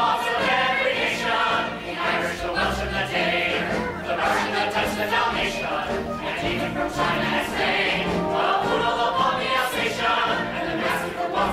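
Musical-theatre number: a chorus of voices singing together over instrumental accompaniment, with no clear words.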